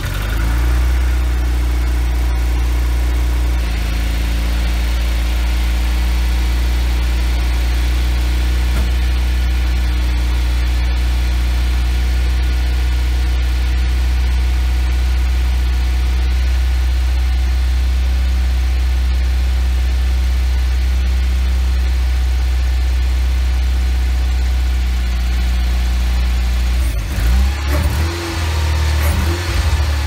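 Nissan Pulsar N13's four-cylinder engine idling steadily just after start-up, its exhaust now running quieter with the leaking joint replaced by a new extension piece. Near the end the note wavers unevenly for a few seconds.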